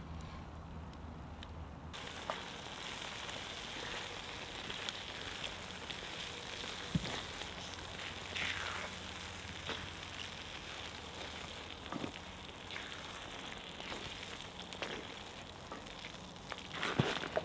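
Chickpea and tomato sauce sizzling in a cast iron skillet over a wood fire, a steady frying hiss from about two seconds in. A wooden spatula stirs and scrapes through it, with a few light knocks and clicks.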